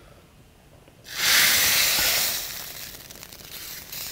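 Tadka of hot oil and fried panch phoron seeds poured into a pot of lentil dal. A sudden loud sizzle starts about a second in and dies away over the next second or so.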